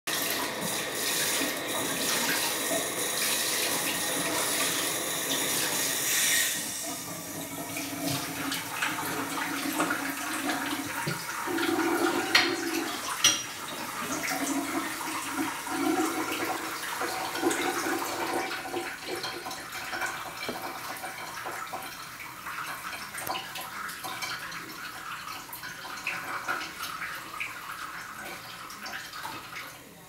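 Snowstorm wind blowing steadily, strongest for the first six seconds and then easing a little, with a couple of brief sharp clicks near the middle.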